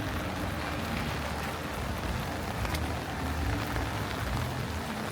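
Heavy rain pouring onto a street, a steady hiss with scattered drop ticks and a low rumble underneath.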